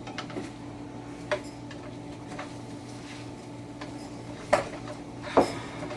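A few sharp clinks and clicks of a cooking utensil against a frying pan of sausage, the loudest about five and a half seconds in, over a steady low hum.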